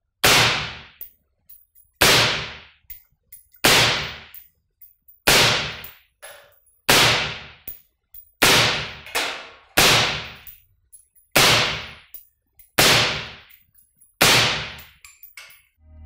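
A 16-inch 5.56 rifle (Daniel Defense DDM4 V5) fires ten single shots through a SilencerCo Saker 5.56 suppressor, about one every one and a half seconds. Each shot is a sharp crack that fades quickly, with small clicks between the shots.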